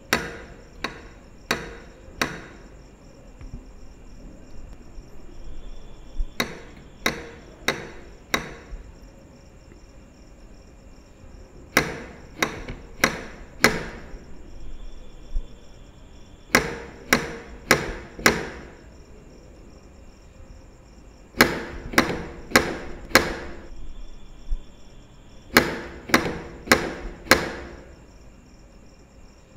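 Knocking on a door: sets of four sharp raps, about a second and a half apart, with the sets coming every four to five seconds, six times over.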